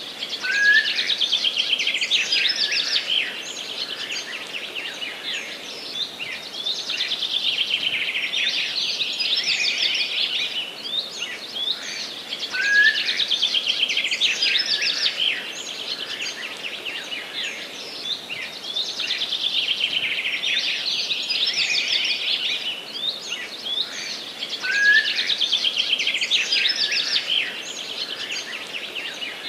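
A songbird singing the same phrase of rapid trilled notes again and again, each phrase about three to four seconds long and starting roughly every six seconds, over a steady background hiss.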